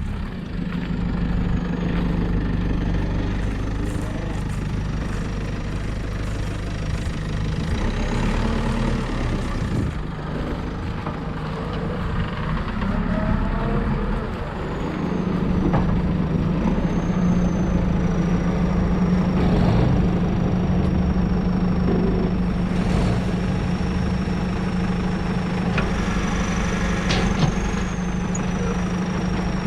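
Heavy farm machinery's engine running steadily, a low drone that gets fuller about halfway through, with a thin high whine above it.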